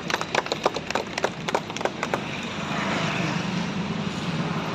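A few people clapping unevenly, the claps stopping about two seconds in, followed by a steady background hum.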